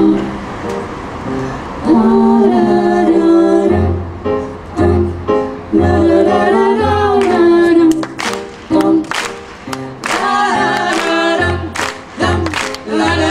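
Live pop song: a man's and two women's voices singing in harmony over an electric keyboard, with a low keyboard note sounding about once a second from about four seconds in. In the second half, sharp percussive hits join the beat.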